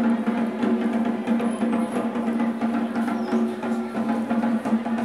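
Music with rapid, busy drumming over a held low note.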